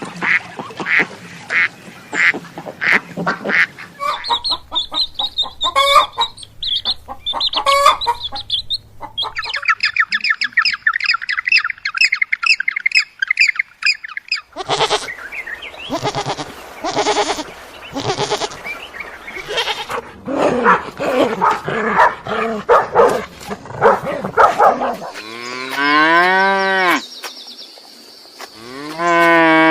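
Farm animals calling in turn: runs of short duck quacks and goose-like honks, a fast high chattering trill in the middle, then two long bleats near the end.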